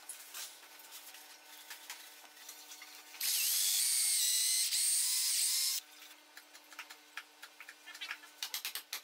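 Cordless drill boring through wood via a bearing-lined drill guide, running at a steady high whine for about two and a half seconds in the middle. Quiet handling clicks come before and after it, and near the end there is a quick run of light hammer taps.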